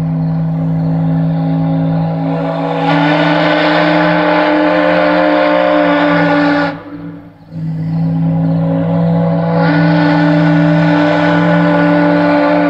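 Loud steam whistles sounding several notes at once in two long, steady blasts, with a short break about seven seconds in; partway into each blast higher notes swell in. This is the early-morning wake-up whistle.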